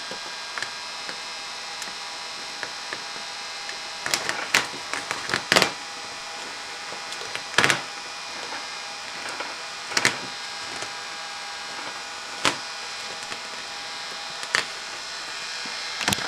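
Plastic squeegee scraping and squeaking over 3M Air Cast vinyl wrap film as it is pressed down onto a plastic ATV fender: a string of short, sharp strokes, the loudest cluster about four to eight seconds in, over a steady background hiss.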